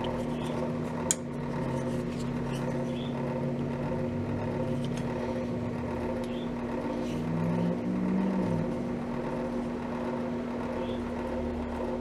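A single sharp snip about a second in, from wire cutters trimming twisted wire ends, over a steady electrical hum that swells briefly near the end.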